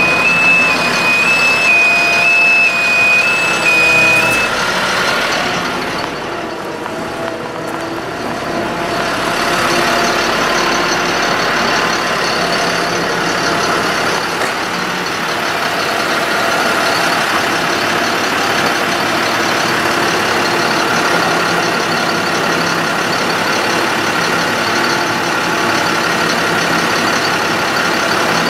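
Ford F-750 bucket truck engine running steadily with its PTO-driven hydraulic pump engaged while the aerial boom and dump body are worked. A two-pitch electronic warning beeper alternates for the first four seconds or so. The engine and hydraulic noise grows louder from about nine seconds in and then holds steady.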